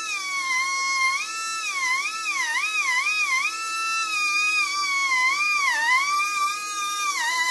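High-speed rotary tool with a fine rubber sanding drum whining as it smooths the port walls of a two-stroke chainsaw cylinder, its pitch dipping and recovering each time the drum is pressed into the metal, with a deeper sag near the end.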